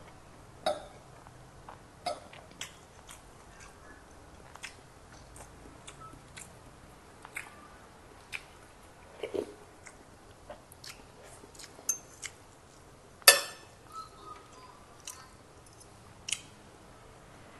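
Close chewing and mouth sounds of someone eating fried rice with pork, picked up by a clip-on microphone, with scattered sharp clicks of a metal spoon and fork against a ceramic plate; the loudest click comes about thirteen seconds in.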